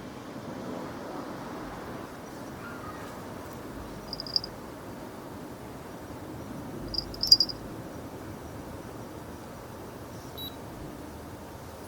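Steady low ambient hum with short, high electronic beeps: one about four seconds in, a louder cluster about seven seconds in, and a faint one near the end.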